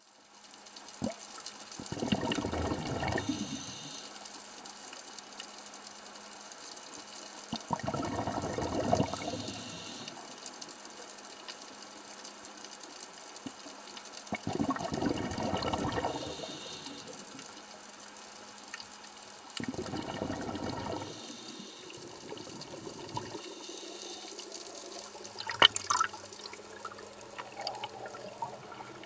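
Scuba diver breathing out through a regulator underwater: four bubbly surges of exhaust bubbles, about six seconds apart. A single sharp knock near the end.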